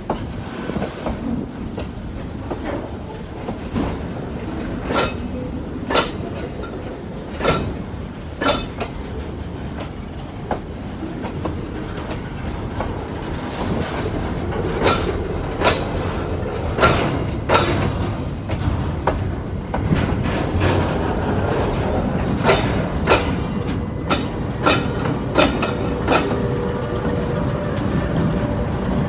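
Container freight train's wagons rolling slowly past, the wheels giving irregular sharp knocks over rail joints above a steady rumble. Near the end the diesel locomotives draw alongside and their steady engine hum comes in.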